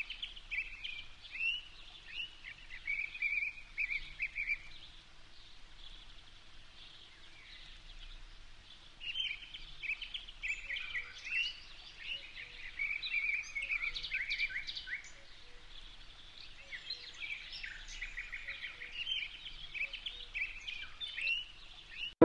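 Forest songbirds chirping and trilling in quick repeated notes, in bursts with a quieter lull a few seconds in, over a faint steady background hiss.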